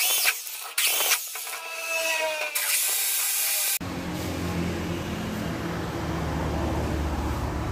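Cordless drill driving screws up into a fibre-cement ceiling board in short bursts, its motor whine rising and falling. About four seconds in it cuts off abruptly, and a steady low hum follows.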